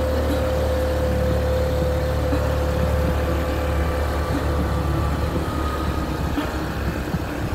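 Honda ADV155 scooter under way uphill: a steady engine drone mixed with wind and road noise, with a thin steady whine that fades out about five seconds in.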